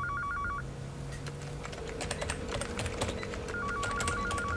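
Typing on a computer keyboard, quick irregular key clicks. An electronic telephone warbles about eight times a second, briefly at the start and again about three and a half seconds in.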